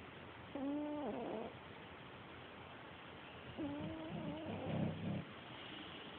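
Pet cat snoring loudly, two snoring breaths about three seconds apart. Each has a pitched, humming tone; the second is longer and ends in a rough rattle.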